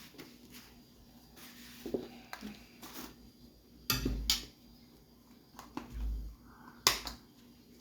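A few scattered clicks and knocks from a spoon and containers being handled while sugar is measured out, with a couple of dull thumps in between.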